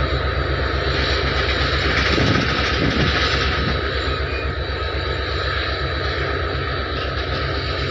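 Several Indian Railways diesel locomotives coupled in multiple, hauling a BOXN goods train past. Their engines run loud and steady with a low drone, and a thin high whine sits above it.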